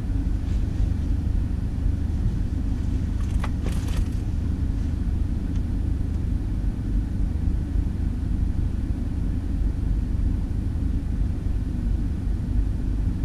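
Steady low rumble of a BMW X5 xDrive50i's twin-turbo V8 idling at a standstill, with one brief sharp click about three and a half seconds in.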